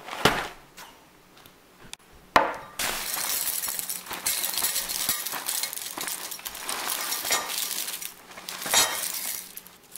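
Dry cereal flakes poured from the box into a ceramic bowl, clattering against the bowl and a metal spoon in a steady rattle for about seven seconds. Two sharp knocks come before the pour.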